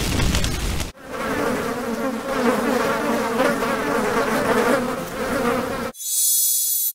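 Dense insect-like buzzing, as of a swarm of flies, with a steady low hum under it. It cuts in sharply about a second in and cuts off about six seconds in. It is framed by a short rushing noise before and a brief high hiss after.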